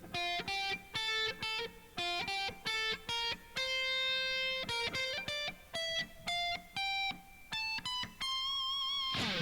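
Clean guitar playing single notes up one string, in quick groups with short pauses between them and slides on some notes, ending on a held note with vibrato.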